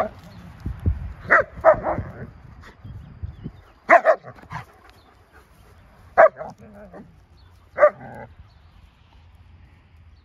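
Long-coated German Shepherd dogs barking in play: about six short barks at uneven intervals, stopping a little after eight seconds in.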